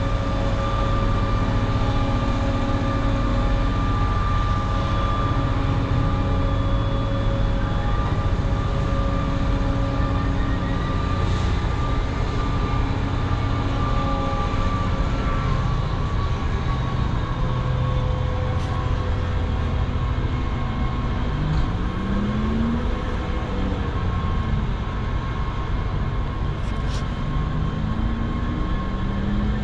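Diesel freight locomotive engine running steadily, its engine note rising briefly about two-thirds of the way through and again near the end.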